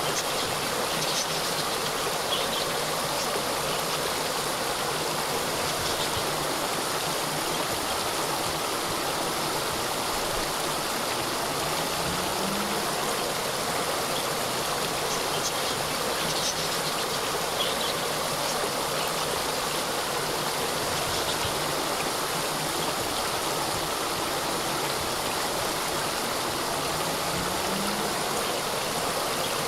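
Water of a small cascade running steadily, an even rush of falling water, with faint short high chirps now and then.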